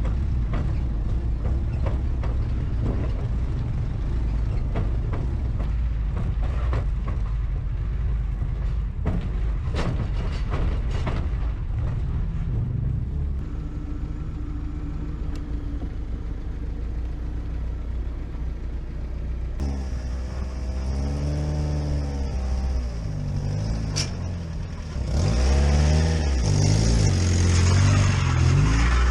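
A 1988 Suzuki Samurai's four-cylinder engine running as it is driven, with a newly installed clutch. About two-thirds of the way through, the engine speed rises and falls, and near the end it grows louder as it picks up revs again.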